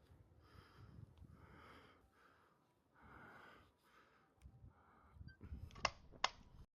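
A person breathing audibly close to the microphone in a series of soft puffs, then two sharp clicks about half a second apart near the end.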